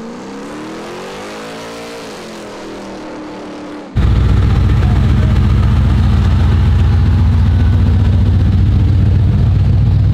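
An engine revs up in pitch, eases back and holds. About four seconds in, the 1985 Chevrolet C10 pickup's engine cuts in loud: a deep, steady rumble as the truck rolls slowly, towing a camper.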